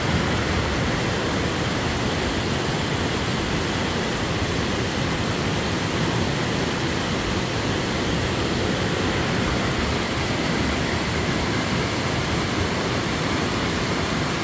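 Rushing water of a small rocky stream running high and muddy after thunderstorms, churning over boulders in a steady, unbroken wash of noise.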